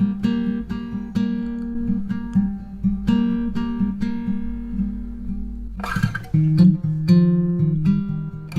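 Background music: acoustic guitar strumming chords with a steady rhythm, the bass line changing about six seconds in.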